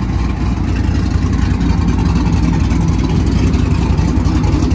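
Pickup truck engine running with a steady, loud, low exhaust rumble.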